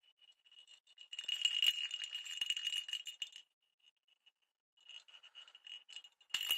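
Cat's toy ball rattling as it is shaken by hand, in two spells with a short pause between and a thin high ring running through the rattle.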